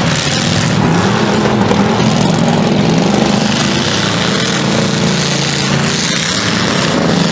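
Engines of several full-size demolition derby cars running together across the arena, their pitch wavering up and down as they rev.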